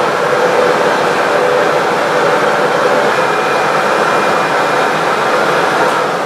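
Vacuum cleaner running steadily, a loud even whoosh as its hose pulls in fog and fills a large plastic bag with air.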